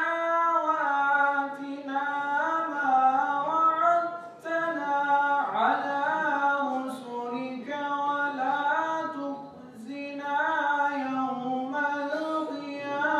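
A man singing unaccompanied into a microphone, in a high voice with long held notes that bend and waver between short pauses for breath.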